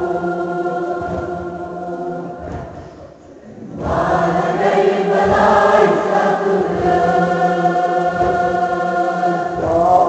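A Kashmiri noha, a Shia lament, sung in long, drawn-out lines by voices with a choir-like sound. The singing dips nearly away about three seconds in and swells back a second later.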